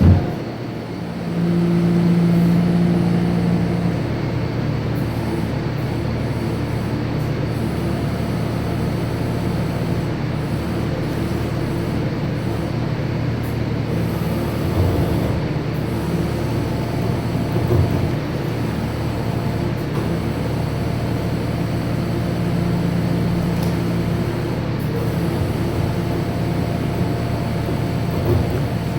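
Kubota SVL97 compact track loader's diesel engine running steadily. A louder, higher tone comes in for a few seconds about a second in and again briefly near the end, with a few short knocks in between.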